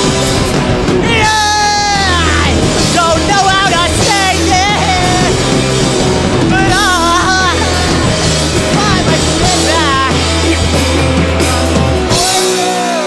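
Rock band playing live: a lead singer over electric guitars, electric bass and drums. About twelve seconds in, the bass and drums drop out and the guitar carries on alone.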